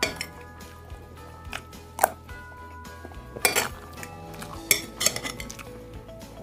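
Metal spoon clinking and scraping against a ceramic plate several times, with sharp clinks about two seconds in, around three and a half seconds and near five seconds, over quiet background music with held notes.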